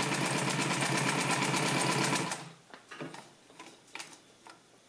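Juki LU-562 walking-foot industrial sewing machine stitching steadily through denim at a long stitch length (8 stitches per inch), with an even rapid rhythm that stops abruptly a little over two seconds in. A few faint clicks follow.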